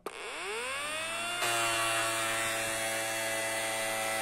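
Small DC toy motor with a propeller, on an electronics kit circuit, spinning up as it is switched on: a rising whine that levels off, jumping suddenly louder about a second and a half in, then running steadily as a fan and winding down as it stops near the end.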